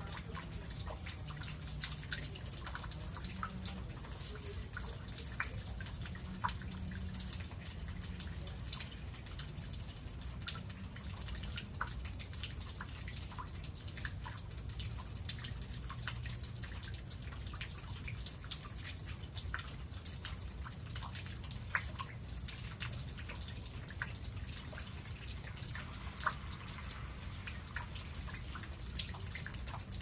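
Meltwater dripping from icicles on the porch roof edge and from ice-coated trees: an irregular patter of many drips over a low steady rumble.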